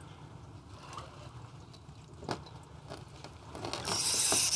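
Quiet stretch with a few light clicks, then about four seconds in a Kastking Valiant Eagle 1000 spinning reel starts a loud, high-pitched mechanical whirring as the fish moves on the line.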